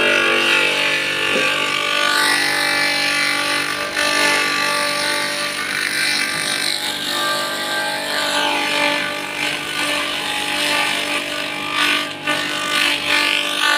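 Homemade fodder chopper (mesin cacah) running steadily with an even motor hum, shredding taro leaves and stalks as they are fed in by hand; the chopping noise rises and falls as more leaf goes through.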